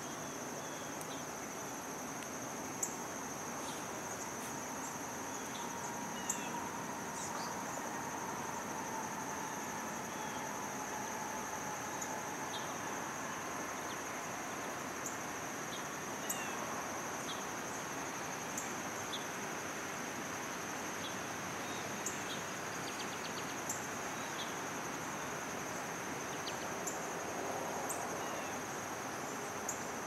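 Steady, high-pitched trilling of meadow insects, one unbroken buzz, with brief faint ticks and short chirps every few seconds.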